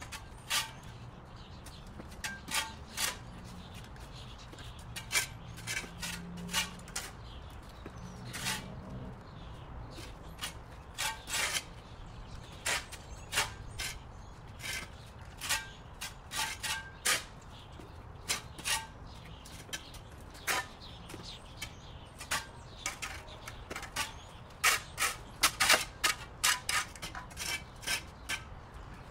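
Irregular sharp taps and clicks, one to three a second and uneven in loudness, over a faint low hum.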